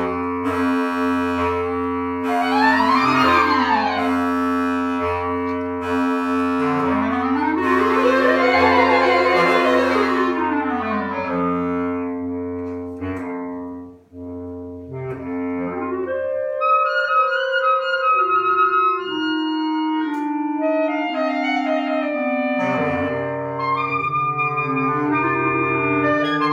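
Contemporary instrumental music: long held low drone notes under sweeping runs that rise and fall. About halfway through the music thins out briefly, then goes on as a slower line of held notes that step up and down.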